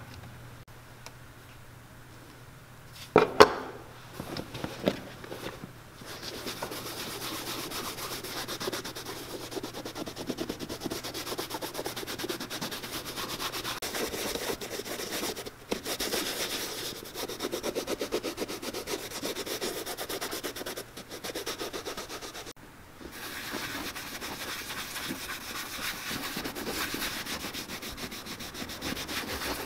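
Cloth rubbing black shoe cream into the leather upper of a boot: a steady brisk scrubbing that stops briefly twice. A couple of sharp knocks come about three seconds in, before the rubbing starts.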